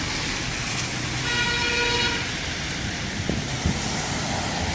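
Busy road traffic going by, with one vehicle horn sounding for about a second a little over a second in.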